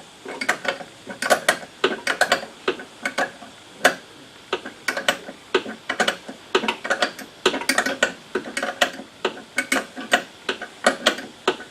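Hand tools tightening a shock absorber mounting: sharp metallic clicks in short, irregular clusters, like a ratchet wrench being worked in short strokes.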